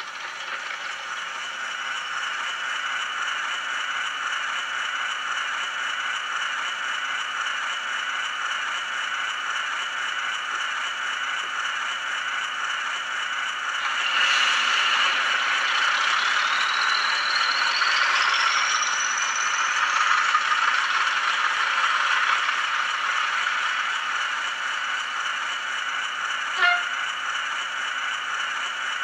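Class 40 diesel engine sound from a Zimo DCC sound decoder, played through the small speaker built into an N gauge model locomotive standing still. The engine runs steadily, grows louder about halfway through with a whine rising in pitch over several seconds, and a short click comes near the end.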